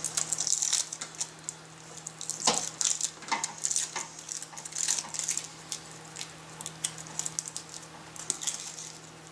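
Light rustling, crinkling and scattered clicks and rattles as lengths of insulated hookup wire are drawn off spools and handled. A steady low hum runs underneath.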